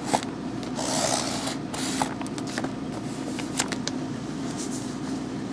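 Fingers rubbing and pressing a strip of paper down onto card coated in gel medium: a paper rub that swells about a second in, with scattered small taps and paper clicks, over a steady low hum.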